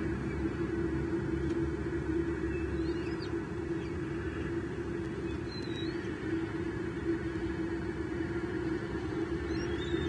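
Steady outdoor rumble and hum from the nest-cam microphone, with a few faint, short high bird chirps about three seconds in, near six seconds and again at the end.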